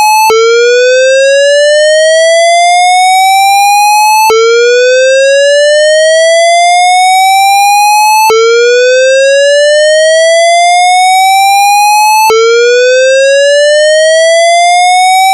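Synthesized square-wave whoop tone recreating a Siemens MXL-V voice-evacuation fire alarm: each whoop rises by an octave over about four seconds, then drops straight back down and starts again. The loud, steady whoops repeat without a break, the evacuation signal of a building fire alarm.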